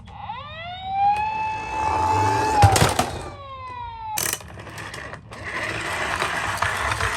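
Toy ambulance's electronic siren winding up to a steady wail, then falling away about three seconds in. From about four seconds in a steady whirring noise with scattered clicks follows.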